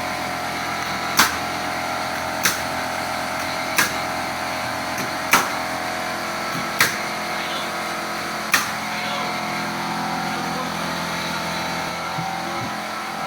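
Nail gun firing six single sharp shots, about one every second and a half, over a steady machine hum; the shots stop about two-thirds of the way in.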